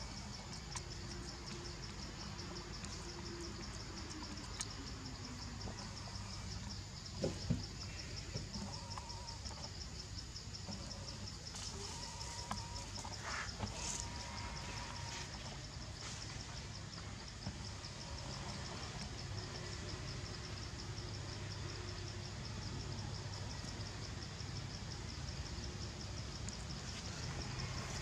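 Insects trilling steadily in a high, rapidly pulsing chorus over a low rumble, with a couple of sharp knocks about a quarter of the way in.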